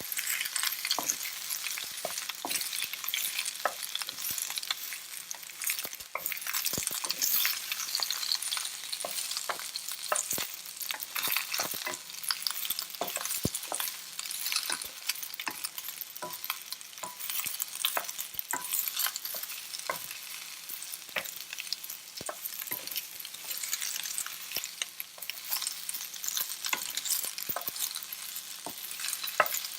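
Sliced peppers and onions sizzling in hot oil in a wok while a spoon stirs and turns them, with frequent short scrapes and knocks of the spoon against the wok.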